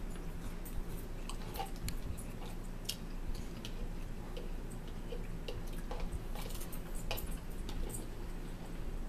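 Eating sounds: chewing and mouth noises with scattered light clicks of a spoon against a plastic bowl, over a steady low hum.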